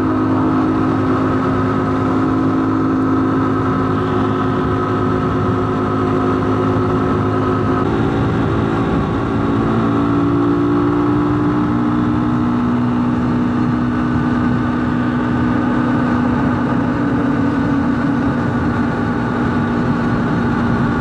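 Lifan X-Plore 200 enduro's single-cylinder four-stroke engine running steadily at highway cruising speed, with wind rushing past. The engine note drops a little about eight seconds in.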